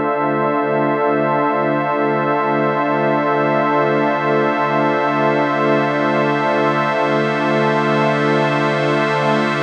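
Yamaha TX7 FM synthesizer module playing a preset: a sustained chord of steady notes that pulses about three times a second.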